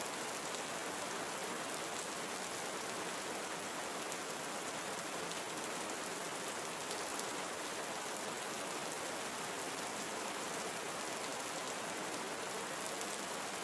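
Steady rainfall in a tropical forest: an even hiss of rain with individual drops ticking through it.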